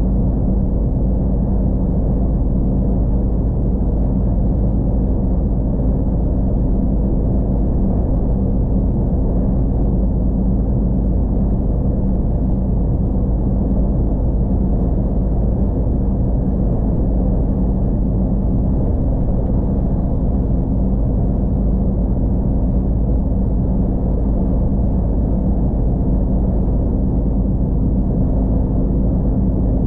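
Iveco S-Way truck's 12.9-litre Cursor six-cylinder diesel running at a steady cruise: a constant drone with a deep rumble under it, its pitch unchanging.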